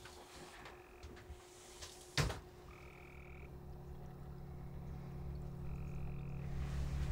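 Frogs calling, short even-pitched trills a few seconds apart. A sharp click about two seconds in, then a low drone that slowly swells.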